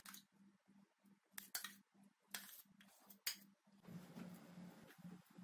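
Faint, scattered clicks and short scrapes of a spatula and spoon working thick béchamel sauce across a glass baking dish, over a low, steady hum.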